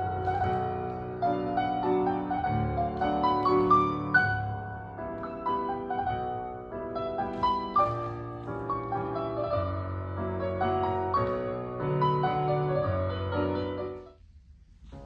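Solo piano playing accompaniment for a ballet barre exercise, a melody over steady bass notes. The piano stops about a second before the end, leaving near silence.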